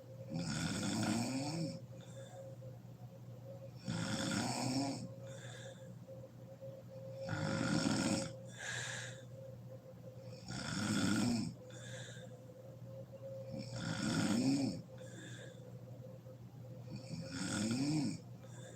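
A sleeping woman snoring loudly and rhythmically: six snores, one about every three seconds, each followed by a shorter, quieter breath out.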